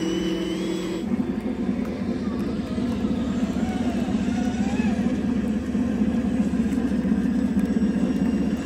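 Radio-controlled scale model of the torpedo boat T48, driven by three brushless electric motors, running: a steady low hum that changes about a second in to a rougher, engine-like low rumble.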